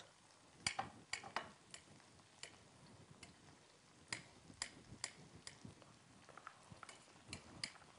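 Faint, irregular clicks of a kitchen knife tapping on a wooden cutting board, a sharp tick every half second or so.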